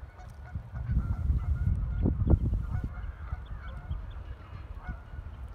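Wind rumbling and buffeting on the microphone, with short, scattered waterfowl calls over it.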